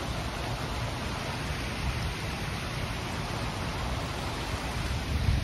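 Waterfall fountain: water pouring steadily down and splashing into its pool, a constant even rush. Wind buffets the microphone near the end.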